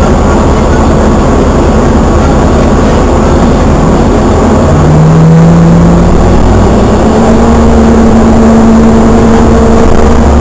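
Vehicle engine and road rumble heard from inside the cabin as it pulls away from a red light and turns. A loud, steady low rumble, with the engine note rising in steps from about halfway through as it accelerates.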